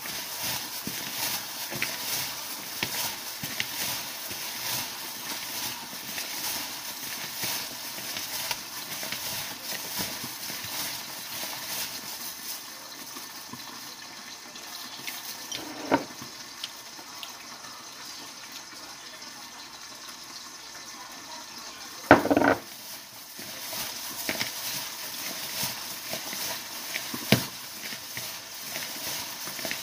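Plastic-gloved hands tossing and squeezing spring onions coated in red pepper powder and sesame oil in a plastic bowl: wet squishing and crinkling of the gloves, busier in the first half. A sharp knock comes about 16 seconds in, a louder double knock around 22 seconds, and another knock near the end.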